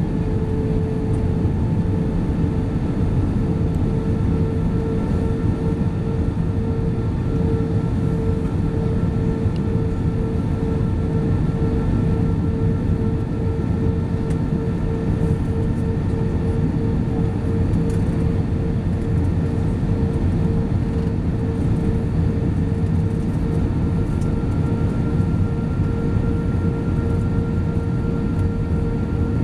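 Cabin noise of an Airbus A320-232 on final approach, heard from a seat over the wing: its IAE V2500 turbofans drone steadily under a dense rush of air, with a constant humming tone. A fainter, higher tone grows slightly stronger near the end.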